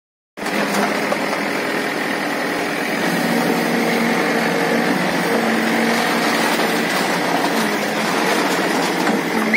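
Escorts Digmax backhoe loader's diesel engine running steadily while the backhoe arm works among felled tree trunks. The sound cuts in abruptly after a brief silence.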